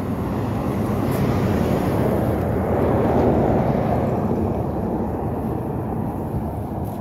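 A vehicle passing: a steady rushing noise that swells to its loudest about three seconds in and then slowly fades.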